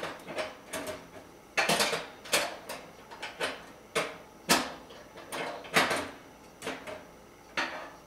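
Rotisserie spit and forks being seated and adjusted by hand inside a Black & Decker TO4314SSD toaster oven, setting it so it spins properly. Metal parts knock and clink against the oven's fittings in a string of irregular clicks and clanks.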